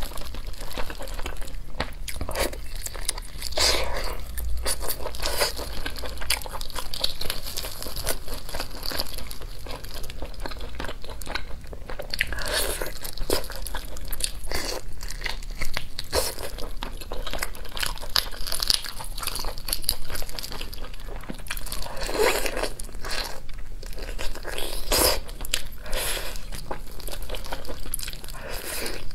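Close-up eating sounds: a whole chili-coated chicken torn apart by hand, with meat bitten off and chewed. Many short, sharp clicks and smacks follow one another throughout.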